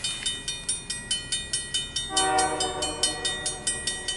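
Grade-crossing warning bell ringing in quick strokes, about five a second, with one short blast of an approaching CSX freight locomotive's horn about two seconds in, lasting about a second.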